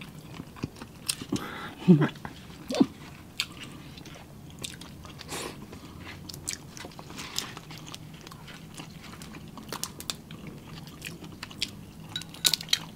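Close-miked eating of shell-on seafood: chewing and crunching with many scattered sharp clicks and cracks as shrimp and crab are shelled by hand and eaten.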